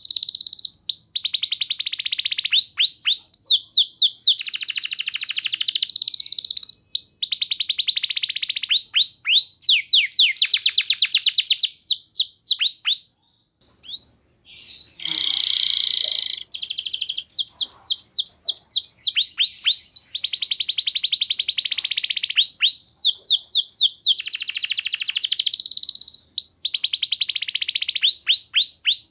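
Domestic canary singing: long rapid trills and runs of quick downward-sweeping whistled notes, high-pitched. The song breaks off for about a second roughly halfway through, then goes on.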